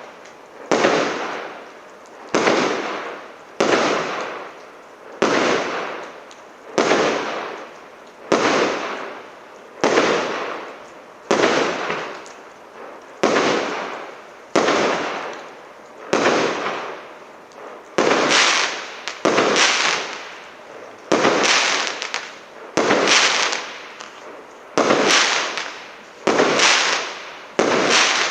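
СЛ326200 «Марафон» firework battery firing shot after shot at an even pace, about one every one and a half seconds, each a sudden burst that fades over about a second.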